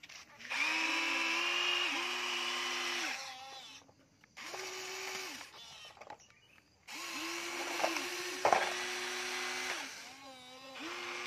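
Electric motors of a Huina remote-control toy excavator whining as the boom, arm and bucket move, in several runs of one to three seconds whose pitch steps up and down. A sharp knock comes about two-thirds of the way through.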